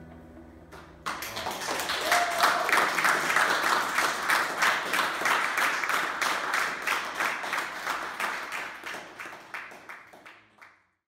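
Audience applauding and clapping as a live song ends. The last chord rings out for about a second, then the clapping starts suddenly, is fullest over the next few seconds, and thins out before stopping.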